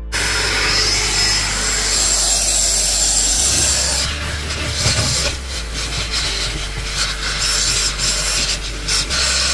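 SIP 3-in-1 industrial valet machine vacuuming the car's footwell carpet: a steady motor rush with a high whistle. From about four seconds in, the nozzle scrapes back and forth over the carpet.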